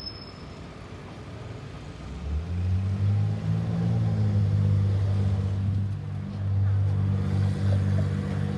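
A motor vehicle's engine running close by, a low steady drone that swells in about two seconds in and holds.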